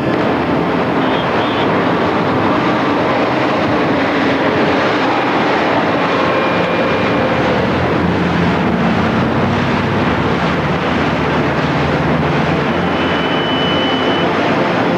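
Steady street traffic noise of running vehicles, with a passing engine whose pitch falls slowly about halfway through.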